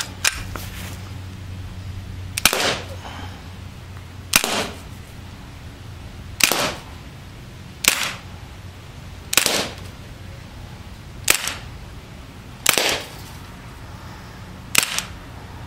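Beretta PX4 Storm CO2 blowback air pistol firing .177 pellets: about nine sharp pops, each with a brief tail, one roughly every two seconds.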